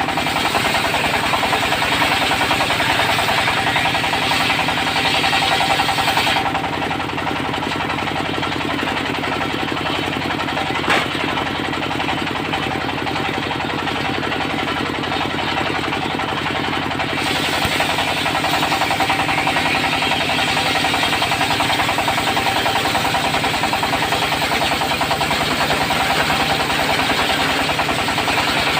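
Diesel engine of a portable circular-saw sawmill running steadily with a fast, even knock. The brighter, hissing part of the sound falls away for about ten seconds in the middle, and there is one sharp click about eleven seconds in.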